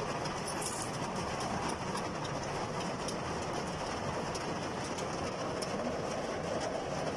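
Heavy downpour hitting a car's roof and windows, heard from inside the cabin: a steady, dense patter with many sharp drop ticks.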